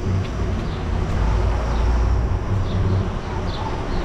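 Steady low rumble of a bicycle riding along a paved sidewalk, with short falling bird chirps several times, more often in the second half.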